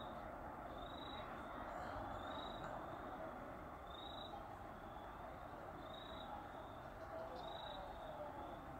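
Night-time outdoor ambience: a short high chirp repeats about every second and a half over a steady background chorus of night creatures.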